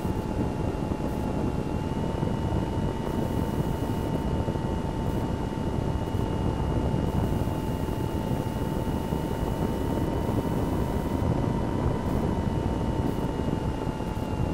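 Onboard sound of a Multiplex Cularis motor glider's electric motor and propeller running under power: a steady motor whine over rushing airflow and wind on the microphone. The whine's pitch rises slightly about two seconds in and eases back down near the end.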